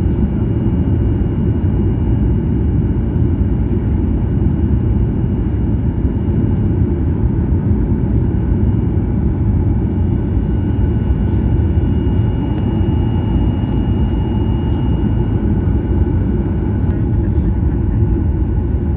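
Steady airliner cabin noise from the engines and airflow: a continuous low rumble with a faint high whine over it.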